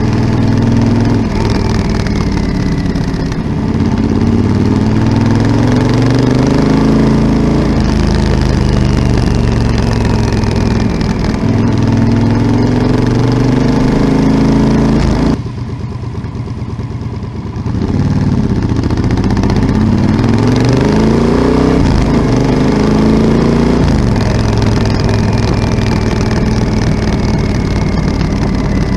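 Yamaha Super Ténéré XT1200ZE's parallel-twin engine through an aftermarket Delkevic 343 mm oval carbon-tipped exhaust, pulling up through the gears. The note rises over a few seconds and drops at each shift. About halfway through it goes quieter for a couple of seconds, then picks up again.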